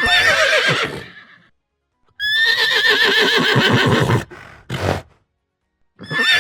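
Horse whinnying: a short whinny, then a longer whinny with a quavering, wavering pitch about two seconds in, and a short breathy burst near five seconds. Another whinny begins near the end.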